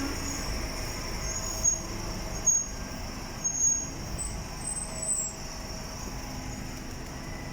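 Docklands Light Railway train running into the station: a steady low rumble with a high steady whine and several short, high squeals in the first five seconds.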